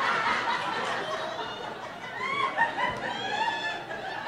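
Theatre audience laughing, many voices at once.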